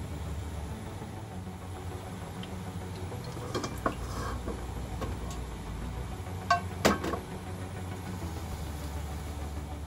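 Steady low hum of a kitchen gas stove burner heating a wok, with a few short sharp clicks and knocks from the plastic cooking-oil bottle being handled and set down, the loudest about two-thirds of the way in.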